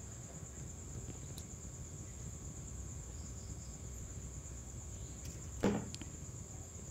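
Crickets trilling steadily at a high pitch behind a low room hum, with one brief handling noise a little before the end.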